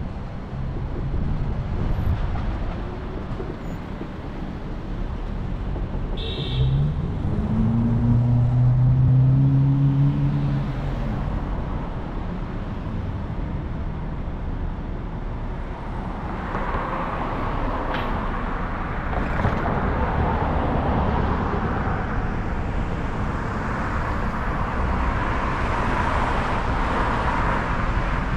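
Car driving on city streets, a steady low rumble of engine and road noise. About a quarter of the way in, an engine note rises and holds for a few seconds. In the second half, tyre and road hiss grows louder.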